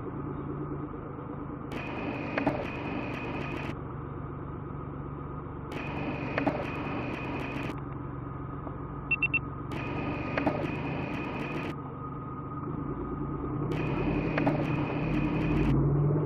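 4WD engine idling, heard from inside the cabin as a steady low hum, growing a little louder over the last few seconds. A light click recurs about every four seconds.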